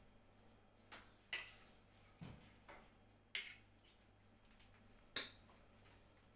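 Utensil tapping and clicking against a ceramic plate: about half a dozen light, separate taps spread over several seconds, over a faint steady hum.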